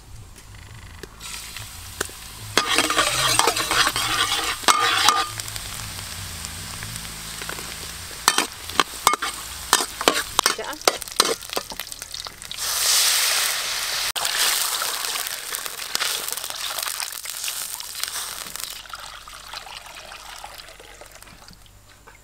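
Food sizzling in hot oil in a steel wok, with a metal spatula scraping and clinking against the pan as it is stirred. The sizzle comes in loud bursts about three seconds in and again about halfway, with a run of sharp spatula clinks between them, and dies down near the end.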